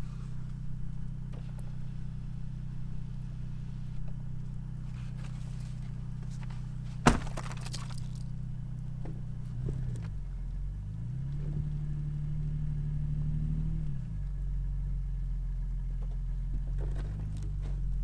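Van engine idling, with a single door slam about seven seconds in. The engine then revs up, holds for a few seconds and drops back, and revs again near the end as the van, on tire chains, is driven in reverse to work its way out of deep snow.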